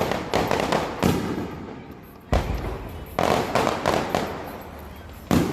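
Firecrackers going off: a string of sharp bangs at irregular intervals, about eight in all, each followed by a fading rumble, with a deeper, heavier blast a little past the middle.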